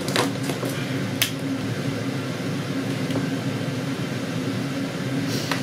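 Steady low mechanical hum, with a few soft clicks: one just after the start, one about a second in and one near the end.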